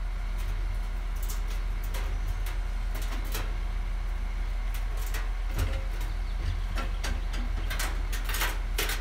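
An engine running at a steady low hum, with scattered sharp clicks and knocks over it.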